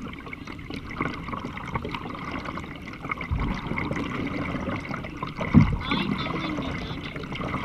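Water trickling and splashing around a kayak being paddled, with two low thumps, the louder one about two-thirds of the way through.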